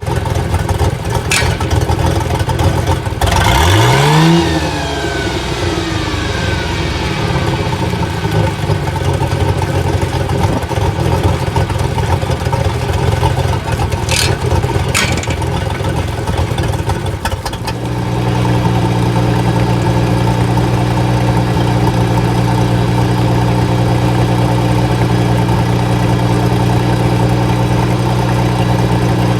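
Mercury 4.3 Vortec V6 marine engines of a Sea Ray 290 running during an engine and sterndrive check. About four seconds in the engine is revved up sharply and falls back; past the middle the sound changes to a steadier, higher hum.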